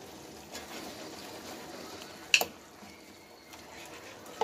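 Pork chops simmering in sauce in a pan, a faint steady bubbling, with one sharp knock about halfway through and a smaller one near the end as a wooden spatula is worked into the meat.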